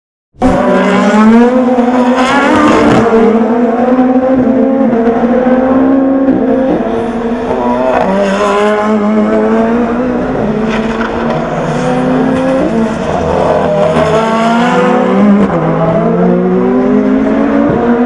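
Several SUPER GT race cars running close together, with overlapping engine notes falling and rising as they brake hard and downshift for a chicane, then accelerate away. The sound cuts in abruptly about half a second in.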